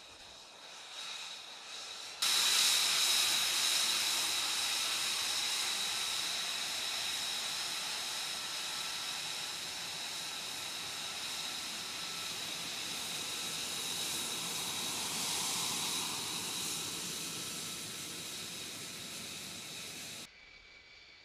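F-35's Pratt & Whitney F135 jet engine running on the ground close by: a steady, high-pitched whine over a loud rushing hiss. It is fainter for the first two seconds, jumps abruptly louder, and drops off abruptly just before the end.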